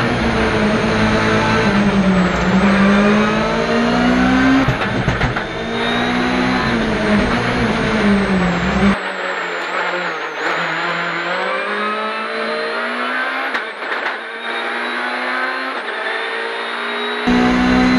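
Hyundai i20 WRC rally car's 1.6-litre turbocharged four-cylinder engine under hard driving, heard from inside the cabin, its revs climbing and dropping again and again through the gear changes. About halfway through the sound turns thinner, without the deep rumble, until shortly before the end.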